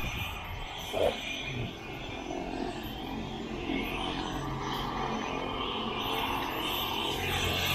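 Helicopter running on its landing pad: a steady engine-and-rotor hum that slowly grows louder toward the end, with a brief louder blip about a second in.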